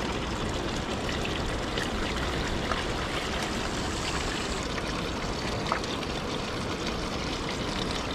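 Water running steadily down a small pump-fed gold-prospecting sluice box, an even splashing rush with a few faint clicks.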